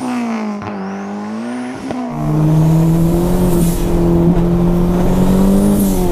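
Turbocharged engine of a modified classic Mini on the move: the engine note wavers up and down for about two seconds, then gives way to a loud, steady drone held at constant speed.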